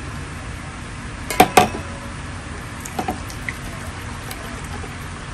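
Two quick clinks of kitchenware being handled about a second and a half in, then a fainter knock about three seconds in, over a steady background hiss.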